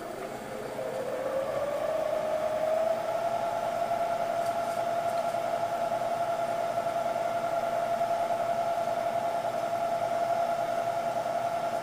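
Milling machine spindle spinning up to about 1,000 RPM: a whine that rises in pitch over the first two seconds, then runs steady. The corner-rounding end mill is turning free in the air, not yet cutting.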